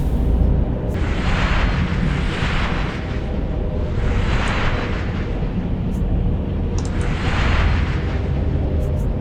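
Designed Force-healing sound effect: a deep steady rumble with several hissing whooshes that swell and fade.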